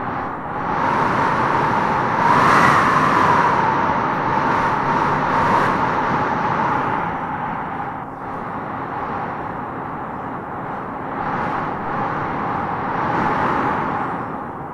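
Wind blowing in gusts, a steady rush with a whistling tone that rises and falls, swelling about two seconds in and again near the end.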